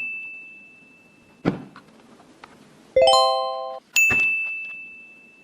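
A high bell-like ding ringing and fading, a single knock, then a short, loud chord of several tones followed by a second ding that rings out and fades.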